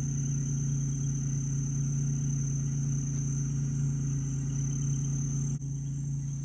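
Night insect chorus: crickets trilling in a steady high whine over a steady low hum. The sound dips briefly about five and a half seconds in.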